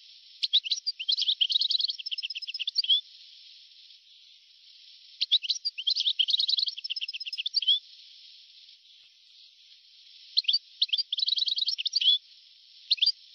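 European goldfinch singing: three bursts of rapid twittering chirps and trills, each about two to three seconds long with pauses between, and a brief snatch near the end, over a faint steady hiss.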